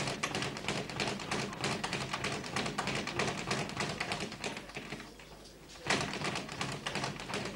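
Busy boxing-gym training: a dense run of quick sharp taps and slaps from gloves and feet, thinning briefly, then a louder smack about six seconds in.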